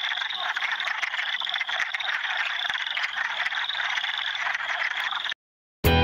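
Chorus of breeding wood frogs: many overlapping short clucking calls, steady until it cuts off suddenly about five and a half seconds in.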